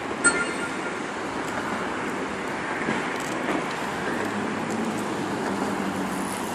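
Steady city traffic noise, a continuous even hum, with a brief high tone about a third of a second in.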